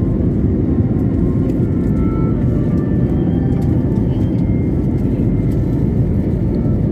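Steady, even cabin noise of a jet airliner on approach to landing: engine and rushing-air noise heard from inside the passenger cabin.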